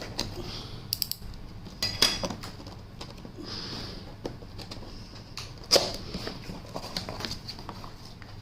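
A cardboard laptop box being handled and opened: scattered knocks and taps with soft rustling, the sharpest knock near six seconds in.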